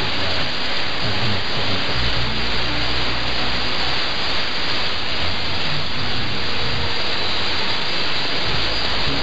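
Long-distance mediumwave AM radio reception on 1467 kHz: a steady hiss of static covers the signal, with the programme only faintly showing through beneath it.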